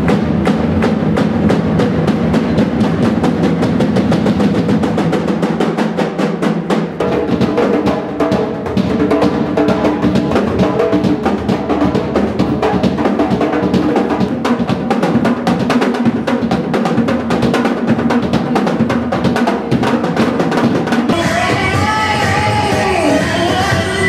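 Busker's drum set played fast and continuously, with rapid rolls and hits on drums and snare. Near the end the sound changes to music with a wavering melody over the beat.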